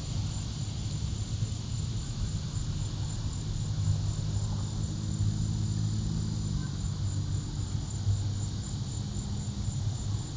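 Crickets trilling steadily in a high, even pitch over a louder low rumble, with a faint engine-like hum through the middle.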